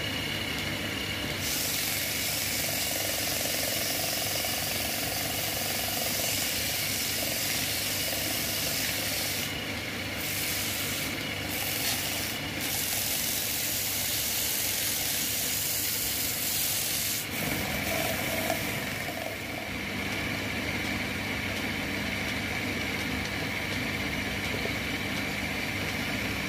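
Belt-driven wood lathe running steadily while sandpaper is held against a spinning wooden bowl: a loud, steady sanding rub that breaks off briefly a few times near the middle and stops about two-thirds of the way through, leaving only the lathe's hum.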